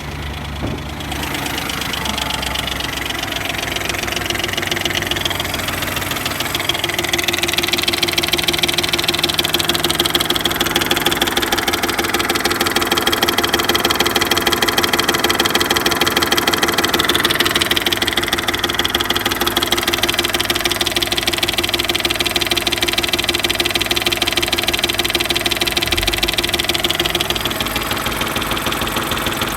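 BMW N62 B44 4.4-litre V8 engine idling with a fast, steady knocking running through it. This is the unidentified knock the owner is asking about, which he says gets quieter once the engine is hot.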